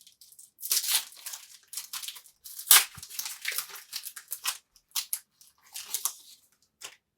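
Wrapper of a trading-card pack being torn open by hand and crinkled: a run of sharp, high rustling tears, the loudest about two and three-quarter seconds in.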